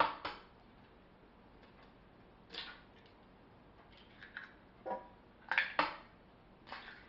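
Kitchen bowls and utensils knocking and clinking: a few separate sharp taps, two together at the start, one a little later and a cluster of several more past the middle.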